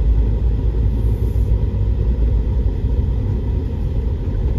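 Inside a moving car: a steady low rumble of engine and road noise.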